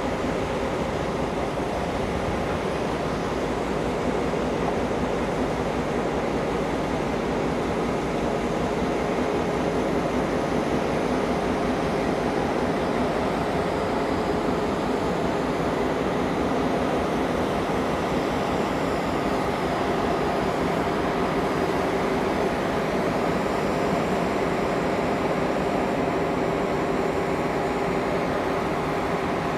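The diesel engine of 42 class locomotive 42103, an EMD 567 two-stroke, running with a steady, even note as the locomotive draws its carriages slowly by.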